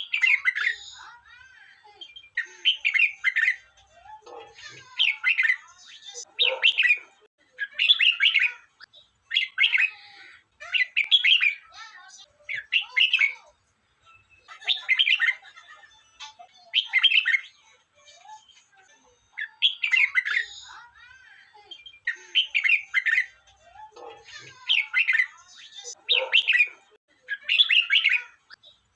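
Red-whiskered bulbul singing: short, loud warbled phrases repeated about every one and a half to two seconds.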